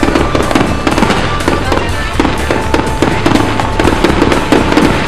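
Fireworks going off in quick succession, a dense run of sharp bangs and crackles, with music playing underneath.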